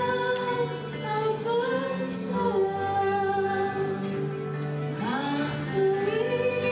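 A slow song sung by a female voice over instrumental accompaniment, in long held notes that slide between pitches.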